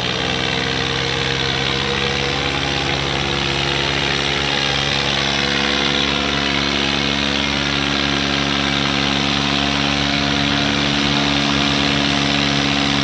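Diesel tractor engines, a red Swaraj among them, running hard under heavy load in a tractor tug-of-war, the Swaraj's front wheels lifted and its exhaust smoking. A loud, steady drone that holds almost the same pitch throughout.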